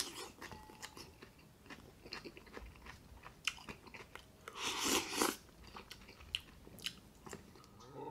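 Close-miked chewing and biting of spicy instant noodles and raw green onion stalks: many small wet mouth clicks and crunches, with one louder slurp about five seconds in.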